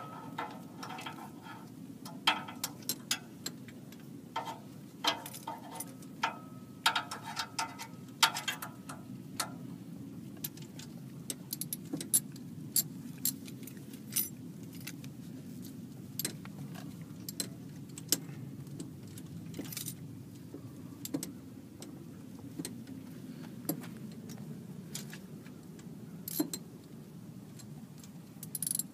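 Metal hand tools (a spark-plug socket and ratchet) clinking and rattling against each other and the engine in irregular taps while the last spark plug is fitted; some clinks ring briefly. A steady low hum runs underneath.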